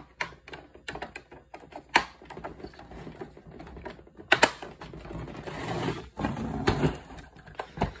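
Plastic battery cover being fitted and snapped shut on the underside of a Canon Typestar 5 electronic typewriter: a run of clicks and snaps, with a sharp snap about two seconds in and a louder double snap just after four. Then rubbing and knocks of the plastic case as the typewriter is handled and turned over.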